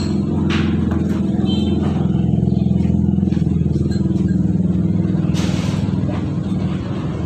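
A motor vehicle engine running steadily nearby, swelling slightly in the middle. About five and a half seconds in there is a short hiss.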